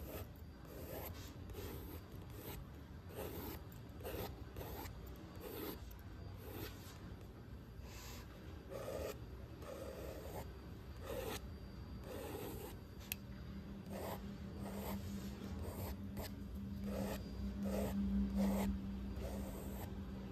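Graphite pencil scratching across sketchbook paper in long, repeated strokes, roughly one or two a second. A steady low hum comes in about two-thirds of the way through.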